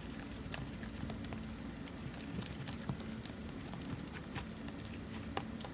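Clear-glue slime being stirred in a container while it is activated: faint, irregular sticky clicks and crackles over a low steady hum.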